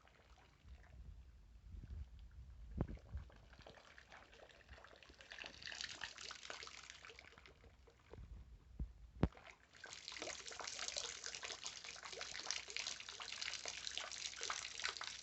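Water splashing and trickling, quiet at first and then steady and louder from about ten seconds in, with a few knocks and a sharp click before that.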